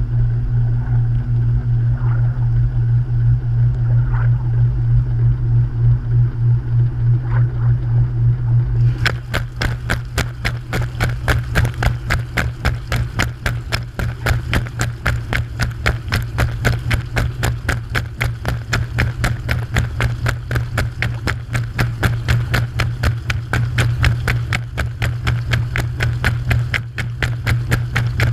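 Washing machine running, heard from inside the drum through a GoPro's sealed dive housing: a steady low motor hum with a regular pulse. About a third of the way in, a fast, even clicking of about four a second starts and keeps on.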